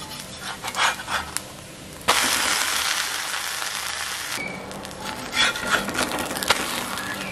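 Metal spatula scraping on a hot griddle (tawa), then a sudden loud sizzle about two seconds in as the onion uttapam is flipped onion side down onto the pan, lasting about two seconds. More spatula scraping follows as the uttapam is lifted.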